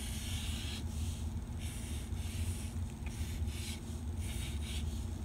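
Black Sharpie felt-tip marker drawing on paper: several short scratchy strokes, each lasting under a second, over a steady low hum.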